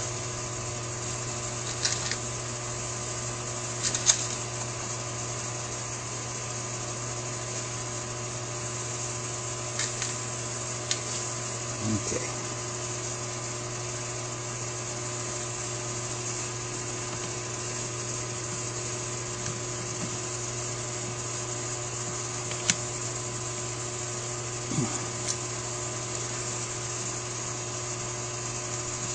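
Steady hum of running equipment made of several fixed tones. Over it come a few short, sparse clicks and taps as small carburetor parts and tools are handled.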